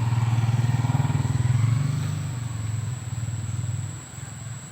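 A passing engine, most likely a motorcycle's: it grows louder to a peak at about a second and a half, then fades away near the end.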